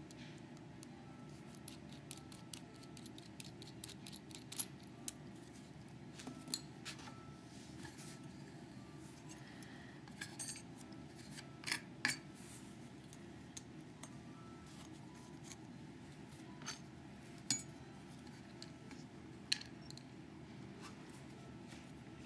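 Scattered small metallic clicks and taps of a Schlage Primus lock cylinder and its tools being handled as the lock is taken apart, with a faint steady hum underneath.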